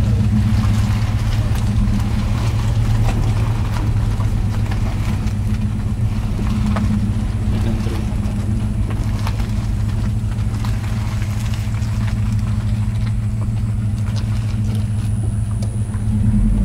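Car engines idling steadily, a low even hum.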